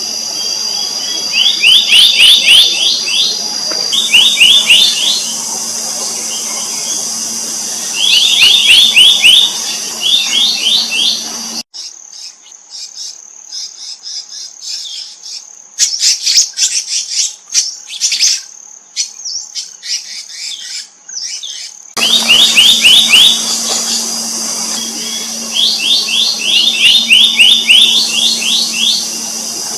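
Black-naped monarch calling: loud bursts of rapid, repeated ringing notes, each burst about a second long, over a steady high drone. The sound cuts abruptly to a quieter stretch of higher, thinner calls for about ten seconds in the middle, then returns.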